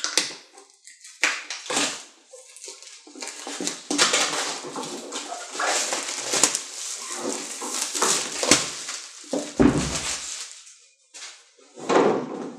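Plastic shrink wrap being cut open and torn off a board game box, crackling and rustling, with a single thump near the end as the box is set down.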